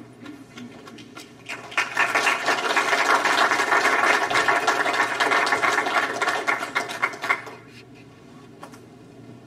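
Congregation applauding: many hands clapping for about six seconds, starting a second and a half in and dying away near the end.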